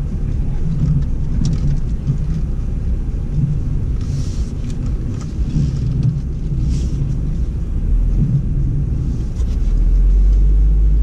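Cabin noise of a BMW X4 M40i crawling slowly over a sand-and-clay off-road course: a steady low rumble of the turbocharged straight-six and the tyres on the dirt, with faint ticks and knocks. It swells louder for the last second or two.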